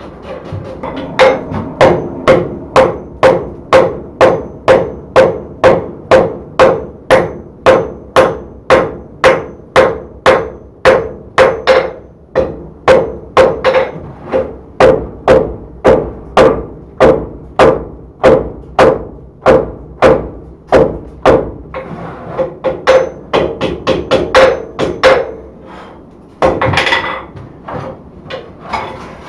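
Blacksmith's hammer striking white-hot steel on an anvil in a steady rhythm of about one and a half blows a second, each blow ringing, as four rods are forge-welded together and the finial end is started. The blows pause briefly around the middle, come lighter and quicker later on, and give way to a short rasping noise near the end.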